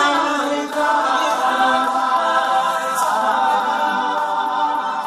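Male R&B vocal quartet singing a cappella in close harmony, with no instruments: several voices holding long, slowly shifting chords.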